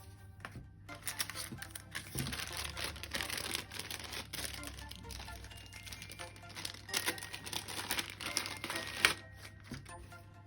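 Plastic packaging crinkling and rustling as it is handled and unwrapped, with a sharp crackle near the end, over background music.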